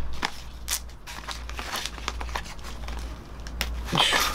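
Knives being handled: a knife pushed into its sheath and another drawn out of a stiff black sheath, with rustling, scattered clicks and light knocks. There is a louder scraping rustle near the end as the blade comes out.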